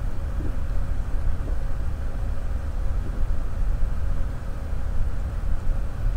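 Steady low rumbling background noise with a faint constant hum, unchanging throughout.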